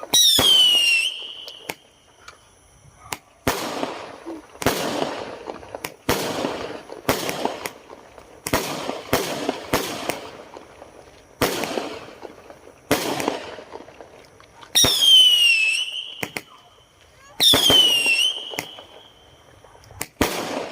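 Fireworks going off: a string of sharp bangs about every one to two seconds, each trailing off briefly. Three times a high whistle falls in pitch and then holds: at the start, and twice near the end.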